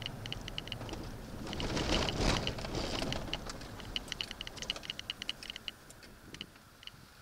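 Vehicle road noise fading as the vehicle slows, with a swell of noise about two seconds in. Quick, light ticking runs along with it, several ticks a second.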